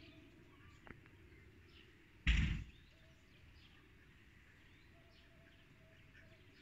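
Quiet outdoor ambience with faint bird chirps, broken about two seconds in by one brief, loud rush of noise.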